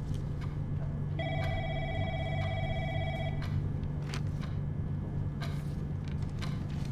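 A telephone ringing once with a trilling electronic ring for about two seconds, starting about a second in, over a steady low hum. Papers rustle and flap as they are tossed about.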